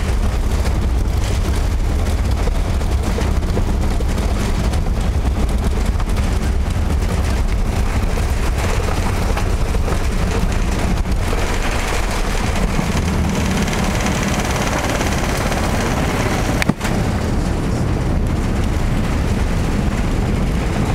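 Inside the cabin of an Emirates Airbus A380 on its takeoff roll: a loud, steady rumble from the runway and the Engine Alliance GP7200 engines at takeoff thrust. In the second half the low rumble eases and a higher rush of air and engine noise builds as the aircraft gathers speed toward rotation. There is one brief click near the end.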